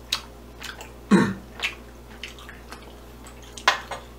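A person chewing rice cake (tteok) close to the microphone: short wet clicks and smacks at irregular intervals, the loudest about a second in.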